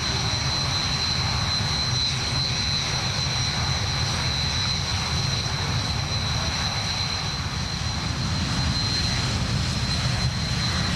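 Jet aircraft in flight: steady engine noise with a thin, even high-pitched whine over it.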